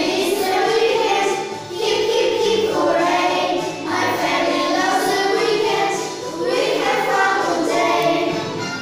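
A song sung by children's voices, in phrases of about two seconds with short breaks between them.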